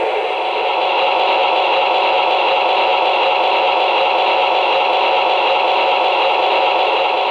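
Steady, thin hissing rumble of O-gauge model trains running on the layout, with no bass to it.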